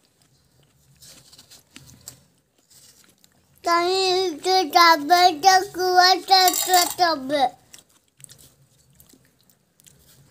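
A young child's high voice wailing for about four seconds, starting about three and a half seconds in, its pitch wavering and breaking every fraction of a second.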